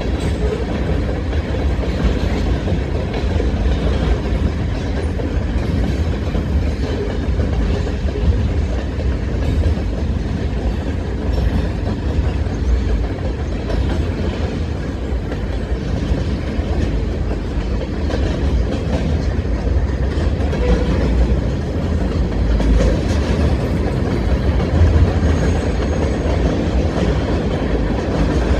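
Freight cars of a Norfolk Southern mixed manifest train rolling past at steady speed: tank cars, covered hoppers and boxcars. A steady low rumble with the wheels clicking over the rail joints.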